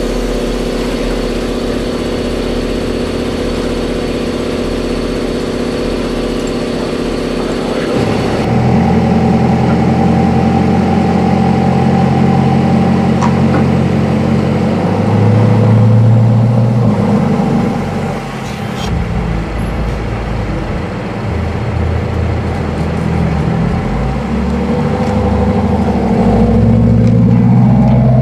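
Chevrolet C8 Corvette Stingray's 6.2-litre V8 running through a custom-fabricated Aero performance exhaust, its note rising and falling as it revs and drives off, loudest around the middle and again near the end. The first eight seconds hold a steady hum of several held tones before the engine sound comes in.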